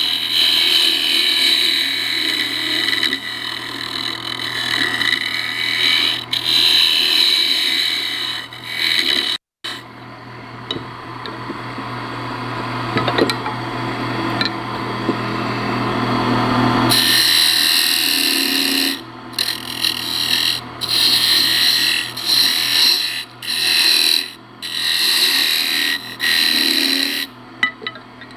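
A turning tool cutting a spinning ash spindle on a wood lathe, a steady scraping hiss of shavings coming off the wood. After a short break about nine seconds in, the cutting is quieter for several seconds, then comes back as a string of short passes with brief pauses between them.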